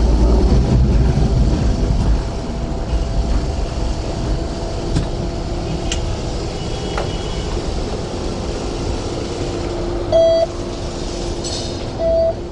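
Hong Kong tram interior: the low rumble of the tram eases off about two seconds in and leaves a steady hum. Near the end come two short electronic beeps about two seconds apart, from the Octopus fare reader at the front exit as passengers tap their cards.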